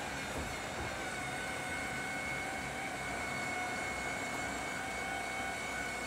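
Battery-powered electric overhead bunk in a motorhome lowering on its drive motor: a steady motor hum with a high, even whine.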